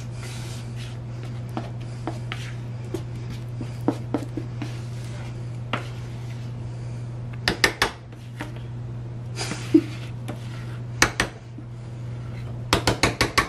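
Spatula scraping thick brownie batter out of a plastic mixing bowl into a metal baking pan: soft scrapes and light clicks, with a few clusters of sharp taps about halfway, about three quarters of the way and near the end, over a steady low hum.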